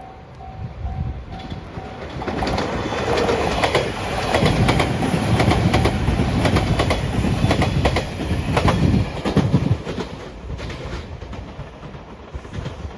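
Level-crossing warning bell ringing in even pulses, about two a second. A train then passes at speed over the crossing, its wheels clattering over the rail joints; the clatter peaks midway and fades near the end.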